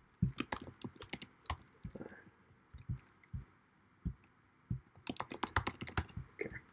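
Typing on a computer keyboard: irregular key clicks in short runs, with a quicker flurry about five seconds in.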